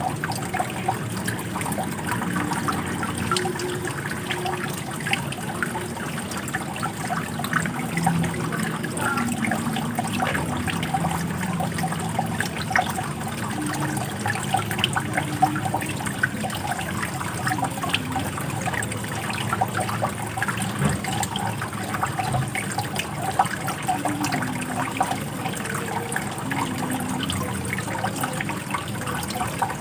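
Running water in a steady flow, trickling with many small splashes.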